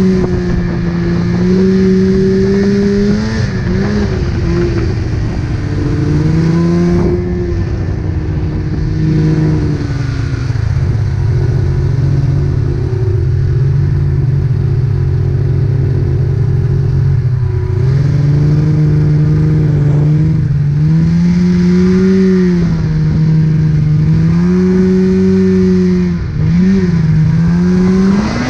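Polaris RMK snowmobile engine running under way, its pitch rising and falling as the throttle is opened and eased off, with short dips about four seconds in and near the end.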